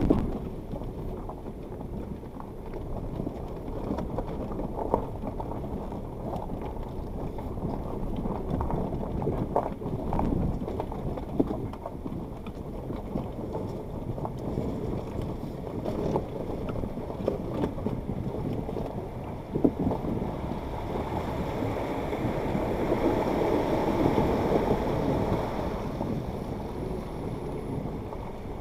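Suzuki Jimny crawling at walking pace over a stony riverbed, heard through its dashcam: tyres crunching on gravel with scattered knocks from stones. A rushing noise swells and fades about three quarters of the way through.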